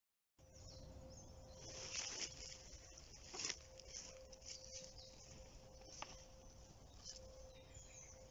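Faint woodland ambience that comes in abruptly just after the start: a low rumble with a thin steady hum, and a few short dry crackles and rustles of leaf litter, the loudest about two and three and a half seconds in.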